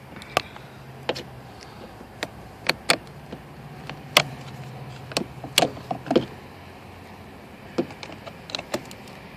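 Irregular sharp clicks and clacks of a jump pack's metal cable clamp being worked onto a car battery terminal, with a faint low hum in two stretches underneath.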